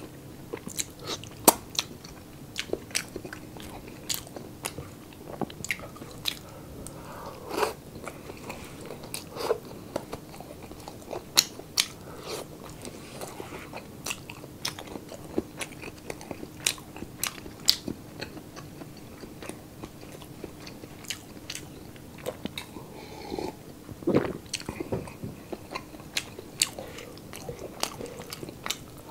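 Close-up chewing of crispy chopped pork sisig, with irregular sharp crunches coming every second or so, together with wet mouth and finger-licking sounds.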